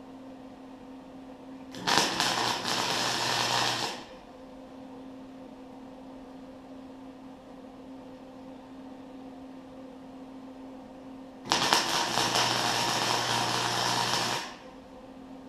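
Electric arc welding: the arc crackles and sizzles in two bursts of about two and three seconds, the welder turned down to a low heat setting. A steady hum runs between the bursts.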